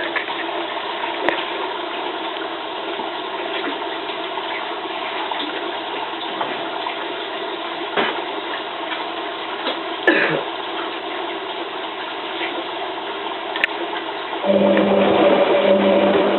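Hotpoint 9534A washing machine taking in water: a steady rush of water with a few small knocks. About two seconds before the end a motor starts up in the machine with a steady, louder hum.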